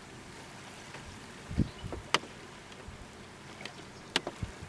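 Wind buffeting the microphone in a few brief low thumps over a steady outdoor hiss from wind and choppy water, with two sharp clicks.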